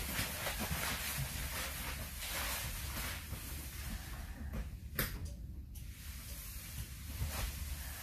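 Footsteps along a school bus aisle over a steady low rumble, and one sharp click about five seconds in, from the child check cancel button at the rear of the bus being pressed.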